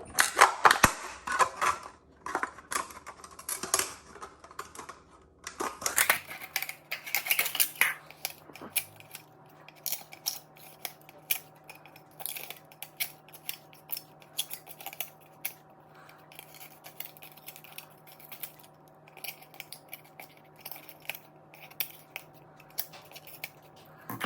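Scissors cutting up a cup. The first several seconds are a run of loud, crunchy snips, and after that come single sharp snips, one every second or so.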